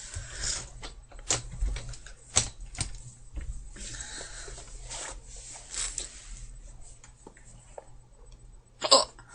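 Light rustling with scattered soft knocks and clicks, then a single girl's hiccup about nine seconds in.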